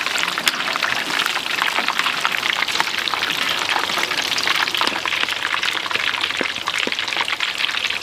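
Food sizzling in hot frying oil: a steady, dense crackle of many small pops.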